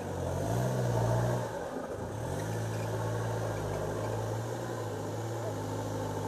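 Off-road 4x4's engine revving up briefly, dropping back about a second and a half in, then running steadily.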